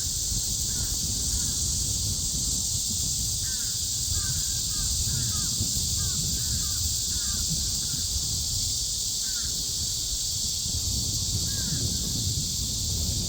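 Cicadas singing in a chorus, a steady high-pitched buzz that does not let up. A bird calls in short bursts of a few notes, several times.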